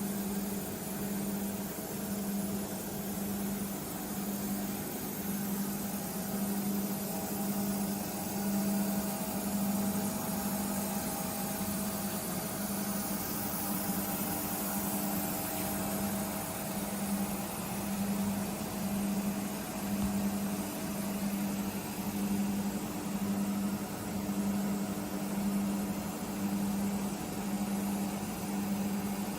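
Nomura NN-32YB2 Swiss-type CNC sliding-head lathe running: a steady machine hum over hiss, with a low tone pulsing about once a second.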